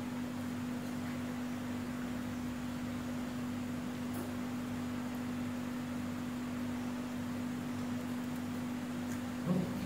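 A steady low hum, one unchanging tone with no other sound over it.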